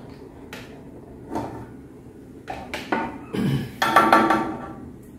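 Hard plastic clicks and knocks of a manual gallon water pump being unscrewed from a water bottle's neck and lifted off. The loudest, longer rattling scrape comes about four seconds in, as the pump's suction tube slides out of the bottle.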